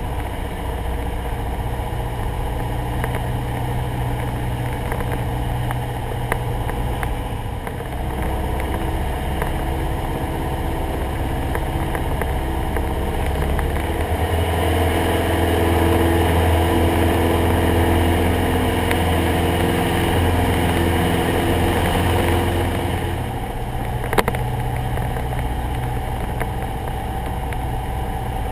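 Cessna 172SP's four-cylinder Lycoming engine and propeller running steadily. The engine note grows louder for about ten seconds around the middle, then eases back, and there is a single short click near the end.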